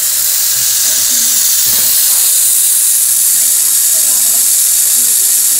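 A loud, steady hiss, strongest in the high range, with faint voices underneath.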